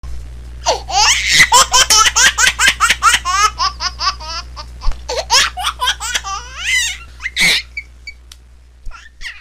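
Laughter: a long run of rapid, high-pitched ha-ha pulses, about five or six a second, tailing off after about seven seconds, over a steady low hum.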